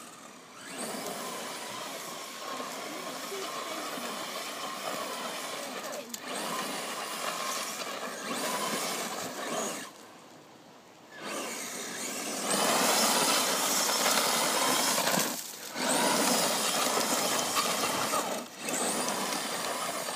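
FTX Carnage four-wheel-drive brushless electric RC truck driving hard on loose dirt: the motor and the tyres spraying grit come in runs of a few seconds, with short breaks between them. It is loudest past the middle, with one longer lull a little before that.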